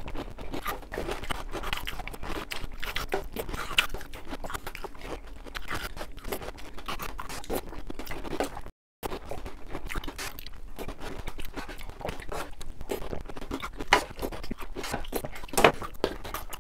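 Close-up crunching and chewing of chocolate Oreo O's cereal in milk, with the spoon scraping against the tray. The sound cuts out completely for a moment about nine seconds in.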